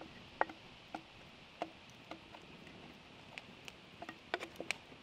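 A whisk and spatula clicking and tapping against the bowl as batter is scraped and poured into a cast-iron pan: light, irregular taps about every half second, bunching into a quick run near the end.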